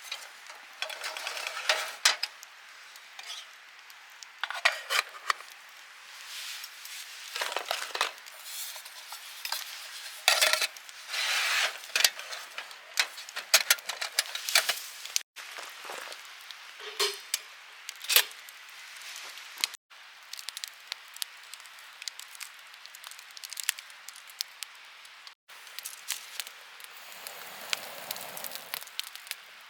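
Utensils clinking and scraping against cookware and dishes in irregular bursts, with a few abrupt cuts between them.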